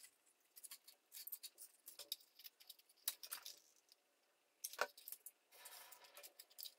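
Near silence with faint, scattered clicks and rustles of hands handling light styrofoam-plate airplane parts and a wooden skewer fuselage, with one slightly sharper click a little before the end.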